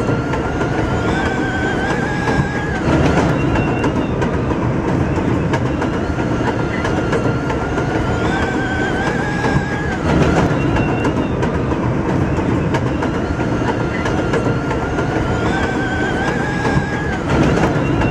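Elevated subway train running over the rails: a steady rumble and clatter of wheels, with a whine that climbs in steps and breaks off three times, each break marked by a brief louder jolt.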